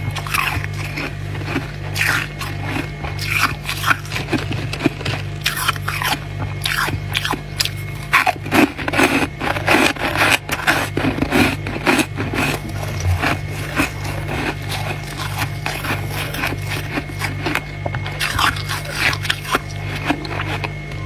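Freezer frost being bitten and chewed: a dense run of crisp crunches, thickest midway through, over background music with a steady low beat.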